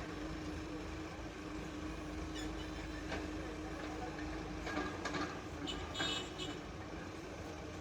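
Case 770 EX backhoe loader's diesel engine running steadily with a constant hum, and a few short sharp clatters between about four and a half and six and a half seconds in.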